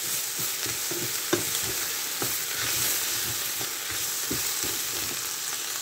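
Basmati rice frying in hot oil with onion and whole spices in a pot: a steady sizzle, with the rice being stirred and scraped and a few sharp knocks against the pot.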